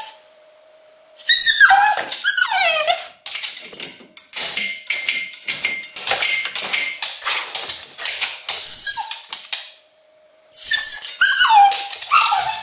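English cocker spaniel left alone behind a pet gate, whining and crying in high-pitched wails that fall in pitch. In the middle comes a long run of rapid scratching and rattling as she rears up against the metal gate, and then she whines again near the end. This is separation-anxiety distress.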